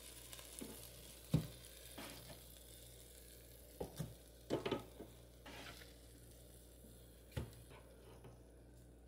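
Half-cooked frozen beef burger patties sizzling faintly in an air fryer basket as they are flipped with a spatula. There are several light knocks and scrapes of the spatula against the basket; the loudest comes about a second and a half in, and a cluster follows around four to five seconds in.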